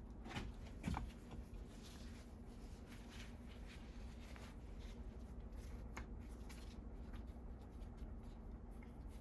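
Faint scraping and light clicking of a small metal keeper being worked bit by bit out of its slot on an old Landis leather splitter, with sharper clicks about half a second in, near one second, and around six seconds in. A steady low hum runs underneath.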